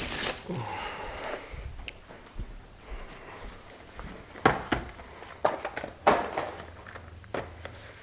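Handling noises from parts and packaging: a string of sharp separate clicks and knocks, about eight in all, with rustling in the first second or so.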